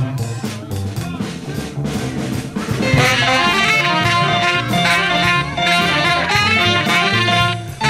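Live jazz band playing: drum kit and double bass, with two saxophones coming in together about three seconds in and playing a fast melody line.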